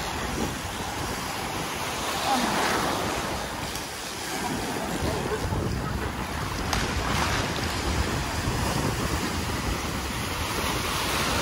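Gulf surf breaking and washing through the shallows, swelling louder a couple of times, with wind rumbling on the microphone.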